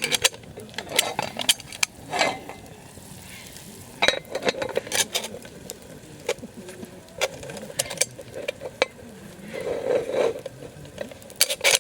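A cooking utensil clinking and scraping against a skillet over a wood campfire, with sharp irregular clicks and knocks throughout.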